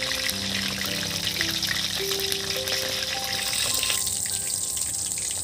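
Battered Bombay duck fish pieces deep-frying in a wok of hot oil, a steady crackling sizzle. A soft background melody plays along with it for the first few seconds.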